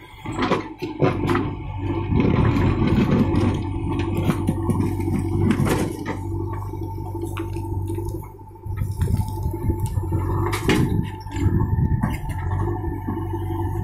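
JCB 3DX backhoe loader's diesel engine running under load as the backhoe bucket digs into a soil heap, with clanks of the bucket and arm and the rattle of dirt and stones. The machine gets louder for a few seconds at a time, dropping back briefly about two-thirds of the way through.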